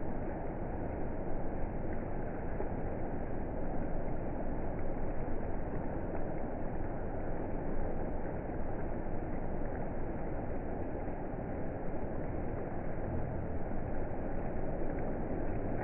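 Thunderstorm ambience: a steady, low rushing noise with no distinct thunderclap.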